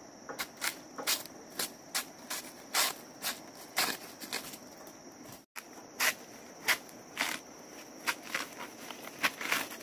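Irregular crisp crackles and snaps, about one or two a second, of dry leaf and banana-stem litter being handled and stepped on, over a steady high insect drone. The sound drops out for a moment about halfway.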